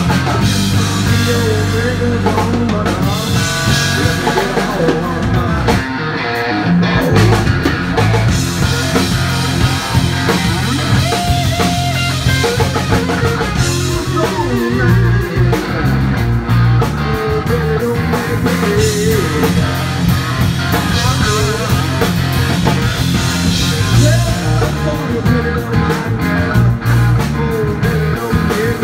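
Live blues-rock band playing: electric guitar lines over a rock drum-kit beat.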